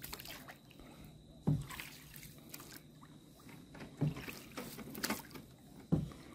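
Faint water sloshing and trickling, with four short soft knocks or splashes spread through it.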